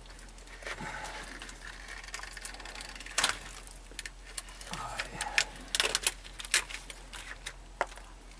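Irregular sharp clicks and clinks of hand tools and fittings being worked on a truck's underside, with a quick run of them past the middle, over faint rustling.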